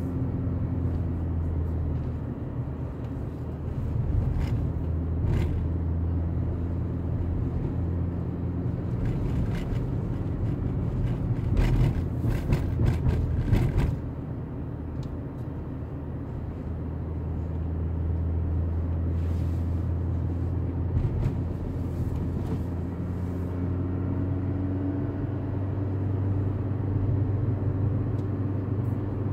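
Car engine and road noise heard from inside the cabin while driving: a steady low hum, with scattered clicks and knocks that are thickest and loudest about twelve to fourteen seconds in.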